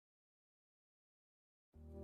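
Complete silence, a blank gap in the soundtrack. Music with held notes cuts in abruptly near the end.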